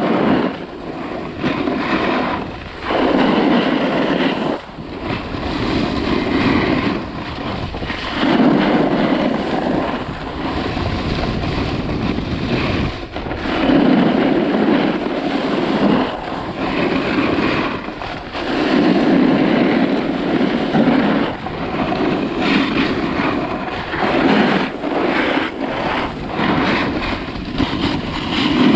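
Snowboard riding down groomed snow: the board's edge scraping over the snow, with a heavier low rumble every few seconds as it carves from turn to turn, and wind on the microphone.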